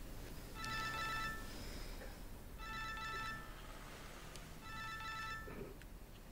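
Mobile phone ringing with an electronic ringtone: three short rings about two seconds apart.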